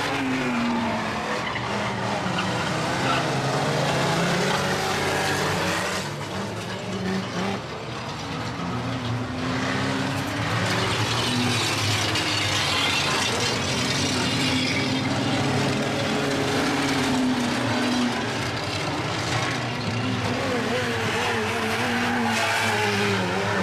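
Several banger-racing vans' engines running hard around the track, their notes rising and falling as they rev, over a steady wash of engine and tyre noise.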